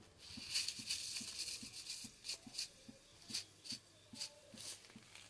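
Cumin seeds sizzling in hot oil in a kadai as they are tempered: a high hiss for about two seconds, then scattered sharp crackling pops as the seeds fry.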